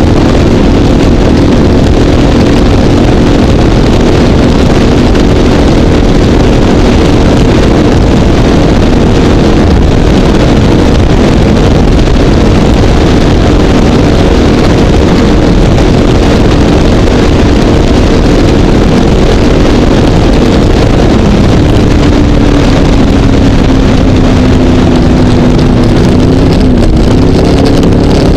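Mercury MerCruiser 496 Mag HO 8.1-litre big-block V8 powering a Pantera 24 speedboat at speed, running hard and steady over a rush of wind and water spray. About three-quarters of the way through the engine note drops a little, and it wavers near the end.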